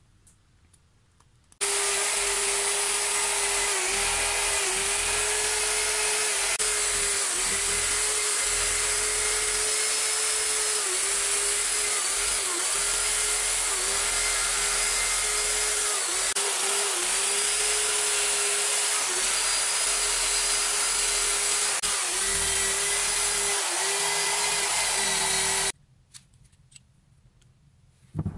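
Electric drill spinning a wire brush against a rusty cast-iron vice part to scour off the rust: a loud, steady motor whine over the hiss of the wire bristles, the pitch dipping briefly now and then. It starts about a second and a half in and cuts off a few seconds before the end.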